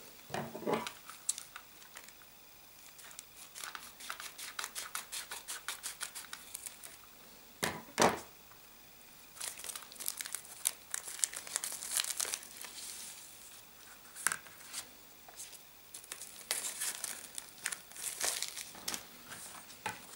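Mailing envelope crinkling and tearing as it is opened by hand, in several spells of rapid crackle, with one sharp knock about eight seconds in.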